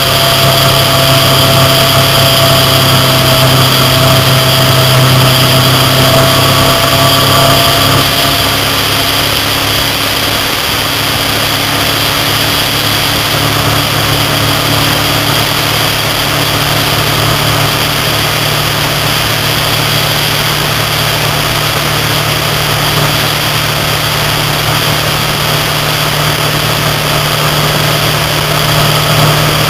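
Motorcycle engine running steadily at highway cruising speed, with wind and road noise over it. The engine note rises slightly about halfway through.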